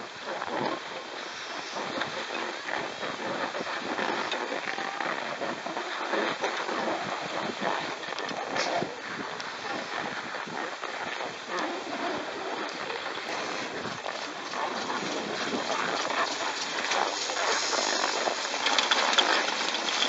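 Skis sliding and scraping over packed snow while being towed uphill on a T-bar surface lift, a steady crackling hiss. A faint low hum joins near the end as the top station comes close.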